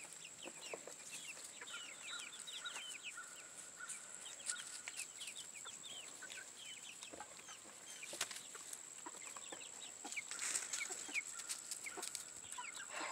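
Small flock of chickens softly clucking and peeping, a stream of short, high chirps one after another.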